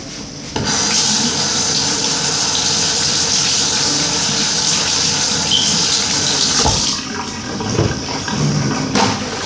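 A water tap running into a sink, turned on about half a second in and shut off about seven seconds in, followed by a few knocks.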